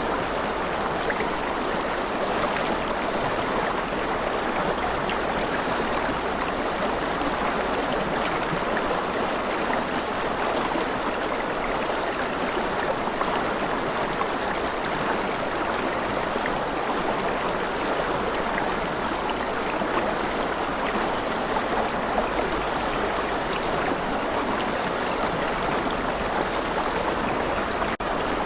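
River water rushing over rocks: a steady, even rush with no pauses or changes.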